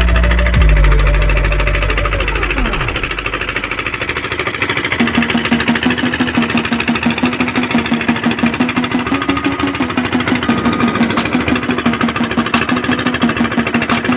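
Deep music bass fades out in the first few seconds. Then a heavy-equipment diesel engine runs with a rapid, even knocking beat and a pulsing hum.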